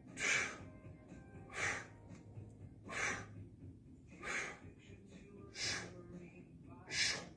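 A man blowing out sharp, hissy breaths, one with each rep of a one-arm overhead dumbbell lift: six exhalations, about one every second and a third.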